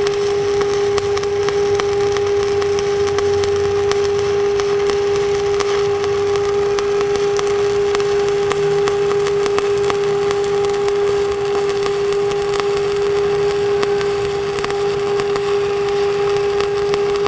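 Stick (shielded metal arc) welding arc crackling steadily as the electrode burns while a cap bead is run, over a steady high hum.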